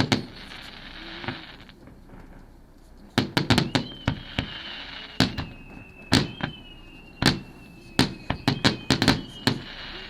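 Aerial fireworks shells bursting with sharp bangs: a couple at the start, a rapid cluster about three seconds in, then irregular single and doubled bangs through the rest.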